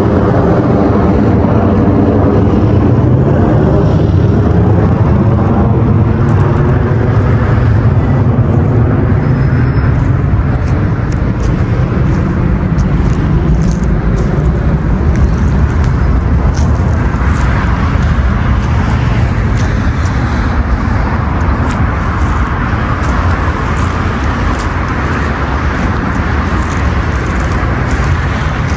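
Steady, loud rumble of road traffic, with a vehicle passing in the first few seconds. It grows a little quieter in the second half.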